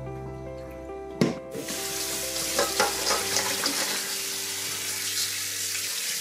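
A sharp knock about a second in, then tap water running into a stainless steel bowl of cut potato sticks as they are rinsed of starch, with steady splashing.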